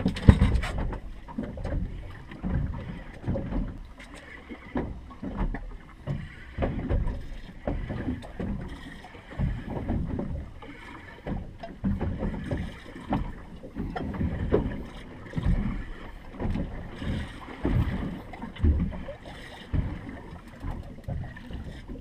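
Wind buffeting the microphone and water slapping against the hull of a fishing boat at rest on open water, coming in irregular low swells every second or two. A sharp knock sounds right at the start.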